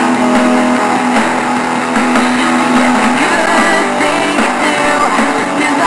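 Background music: a song with guitar, playing steadily.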